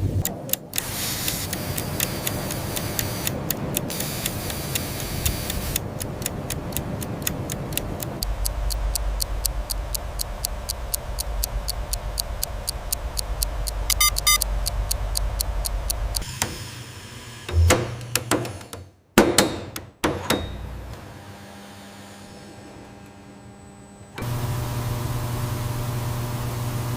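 Factory machinery running with a steady hum. Partway through comes a long run of rapid, even clicks, about five a second, followed by a few loud knocks, and near the end a steady machine hum sets in.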